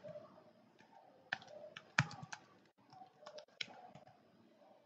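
Faint keystrokes on a computer keyboard: a few irregular key taps in two short runs, typing a password at a login prompt.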